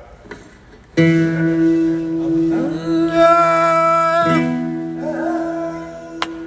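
Voices singing long, steady held notes that begin about a second in and step to new pitches a couple of times, sometimes two notes at once. There is a short sharp click near the end.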